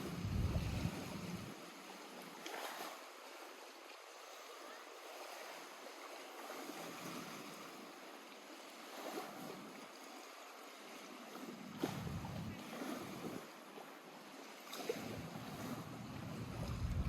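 Lake water lapping gently at the shore as a steady splashy wash. Gusts of wind rumble on the microphone near the start, about twelve seconds in, and again at the end.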